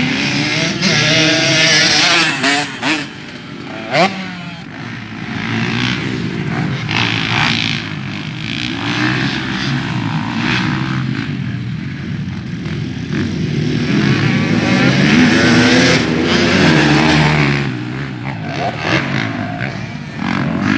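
Motocross bikes riding a dirt track, their engines revving up and down as they accelerate and pass. A short sharp crack stands out about four seconds in.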